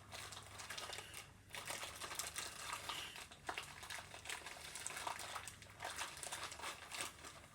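Faint, irregular light clicks and crinkling as plastic toy blasters, foam darts and their packaging are handled.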